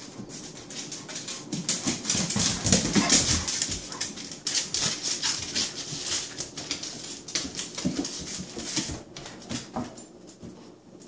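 A Saint Bernard puppy and a Shih Tzu play-fighting on a tile floor: rapid scrabbling and clicking of claws and paws on the tiles, with short dog vocal sounds mixed in. The scuffling dies down near the end.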